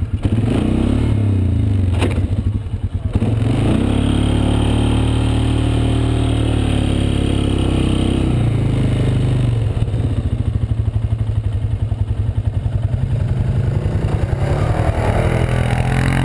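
ATV engine running under way, revving up about three seconds in, holding a steady pitch, then easing off after about eight seconds and picking up again near the end.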